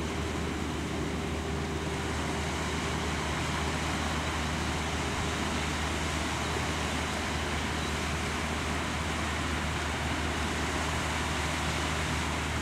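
Steady background traffic noise from the expressway, an even rush with a constant low hum.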